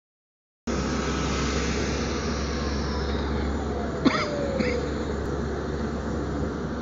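Airliner cabin noise while taxiing: a steady engine drone with a strong low hum and a faint whine falling in pitch, starting suddenly after a short silence. Two short chirps come about four seconds in.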